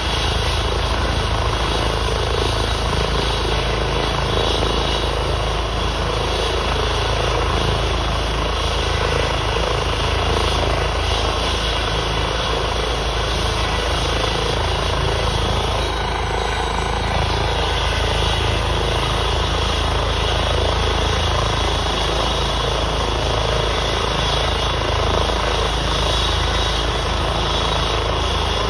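Air ambulance helicopter running on the ground with its rotors turning: steady, loud turbine and rotor noise with a faint high whine.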